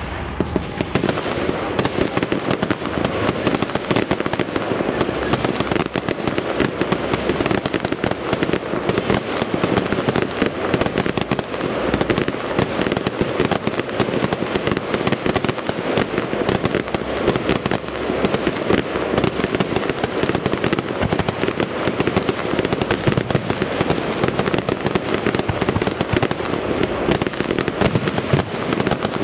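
Professional fireworks display: a dense, continuous crackling of many small bursts going off in quick succession, with no pauses.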